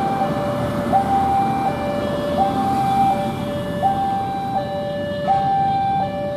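Railway level-crossing warning alarm sounding a steady high-low two-tone, each tone held under a second and repeating about every second and a half, over the low rumble of road traffic.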